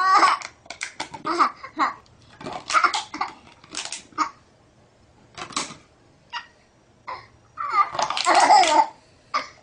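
Baby laughing in repeated short bursts, with a longer laugh about eight seconds in.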